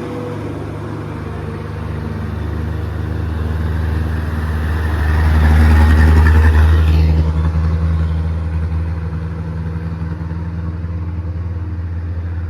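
Heavy truck's diesel engine running hard under load on a steep climb, growing louder about five seconds in and easing back after about seven seconds.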